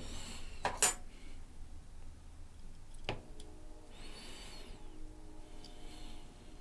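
A few light clicks and knocks of a small diecast car and its loose parts being handled, one about a second in and another about three seconds in, with a brief soft rustle around four seconds.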